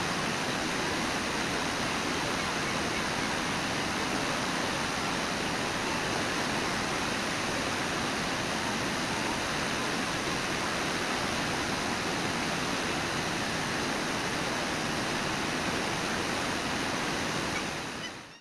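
Steady rush of water from Brooks Falls and the river below it, an even unbroken sound with no rhythm; it fades out near the end.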